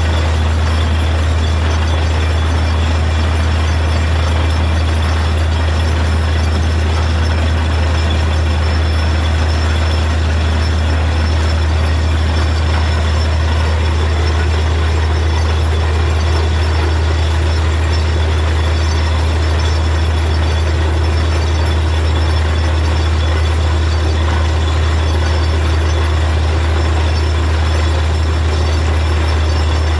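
Truck-mounted borewell drilling rig running steadily under load, a constant low engine drone under the rushing hiss and splash of water and rock cuttings blown up out of the borehole.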